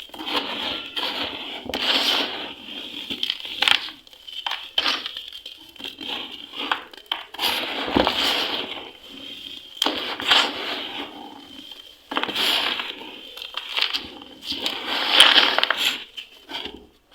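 Crumbly dry cement being crushed, a series of crisp crunches that come every couple of seconds.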